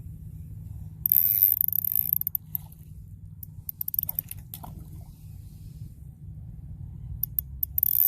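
Shimano Stradic FL 1000 spinning reel being worked, with two stretches of high-pitched mechanical rasping, one about a second in and one near the end, and scattered ticks between them, over a steady low rumble.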